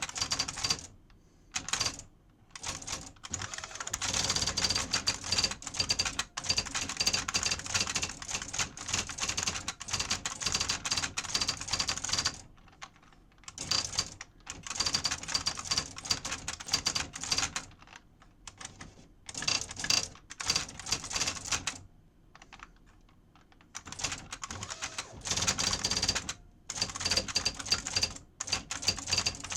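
IBM Wheelwriter 30 Series 2 electronic daisy-wheel typewriter typing: fast runs of sharp strikes, coming in bursts with short pauses between them.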